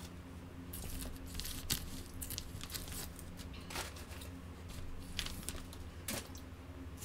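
Clear plastic cookie wrapping crinkling in short irregular bursts as it is handled, over a steady low hum.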